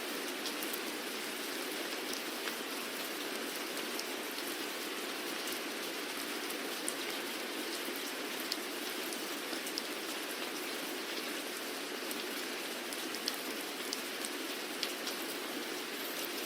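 Steady rain falling, a continuous hiss with scattered individual drops ticking sharply against a surface.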